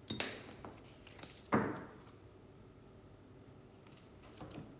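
A deck of oracle cards being handled on a table: a brief scratchy rustle, a small click, then a louder knock about a second and a half in as something is set down, followed by a few faint taps near the end.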